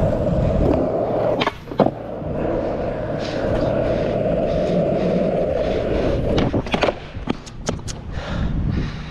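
Skateboard wheels rolling over rough asphalt with a steady grinding hum. Sharp clacks come about a second and a half in, and a cluster of them a little before the end as the board pops and clatters onto the pavement in a missed flip trick, after which the rolling stops.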